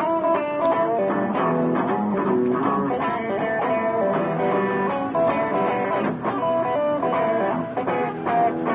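Guitar music: plucked notes and chords changing continuously.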